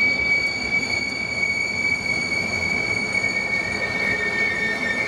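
Red double-deck regional train running along a curved station track, its wheels giving a steady high squeal over the low rumble of the train. A second, slightly lower squeal tone joins about two seconds in.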